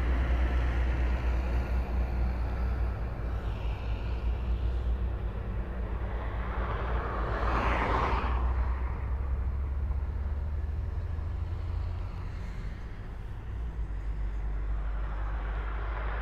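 Highway traffic passing: vehicles swell up and fade away, one about halfway through and another near the end, over a steady low rumble.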